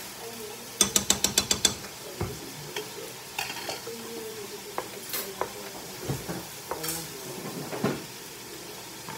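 Beef sizzling in a large pan as it is stirred with a wooden spoon, with scattered knocks of the spoon against the pan. A little under a second in, a quick run of about eight sharp metal clicks as a metal spoon is tapped against the pan or sauce jar.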